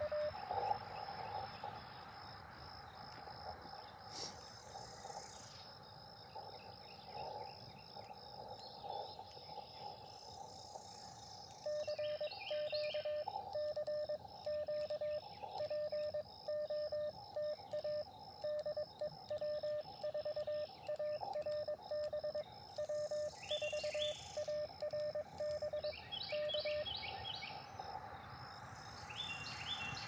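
Elecraft KX2 transceiver giving faint band hiss with weak Morse signals. After about twelve seconds a strong Morse code (CW) tone starts, one beeping pitch keyed on and off in dots and dashes, and it stops a few seconds before the end.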